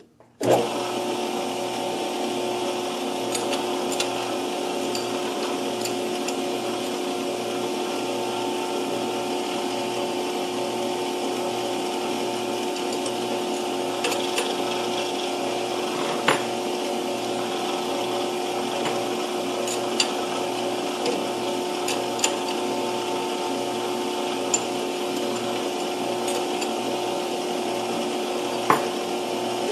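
Metal lathe switched on about half a second in, then running steadily at its set speed of 620 rpm while a twist drill in the tailstock is fed into a bronze workpiece. The motor and gearing give a steady hum with a few sharp clicks along the way.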